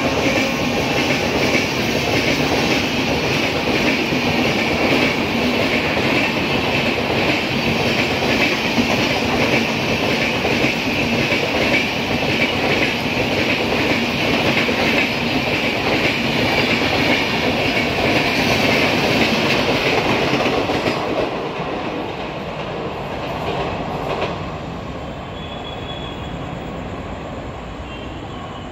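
Express passenger coaches passing through a station at speed without stopping: a steady rush of wheels with clickety-clack over the rail joints. The noise falls away in two steps near the end as the last coaches clear the platform, leaving a lower rumble.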